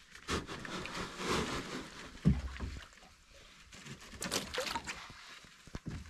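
A person stepping from shallow water into a wood-strip canoe: water splashing and sloshing around the feet and hull, with a few knocks and thumps, the loudest a low thump about two seconds in.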